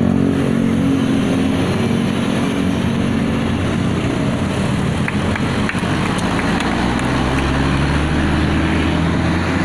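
Intercity coach's diesel engine running as the bus pulls away, a steady low engine note with a deeper rumble building in the second half.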